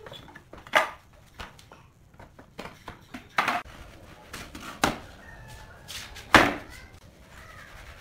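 Wooden pallet boards knocking and clattering as they are handled on a concrete floor: a handful of separate sharp knocks at uneven intervals, the loudest about six seconds in.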